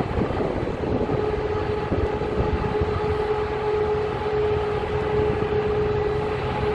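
Steady engine-driven machinery running, with a droning tone that sets in about a second in and holds steady.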